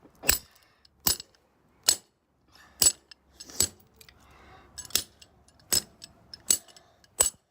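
Repeated sharp smashing blows on a plastic fidget cube's broken pieces, about nine strikes a little under a second apart.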